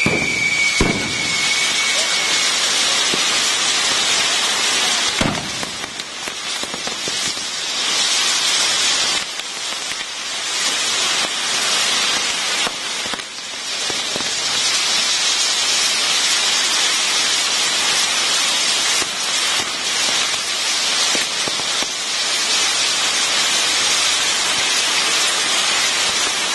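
Maltese ground firework set piece burning: a loud, continuous hiss and crackle of spraying sparks. A falling whistle fades out about two seconds in, and there are sharp bangs about a second in and again about five seconds in.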